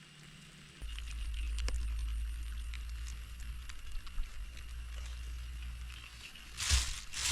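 Steady low rumble on the microphone starting about a second in, with scattered light clicks and a couple of brief rustling bursts near the end.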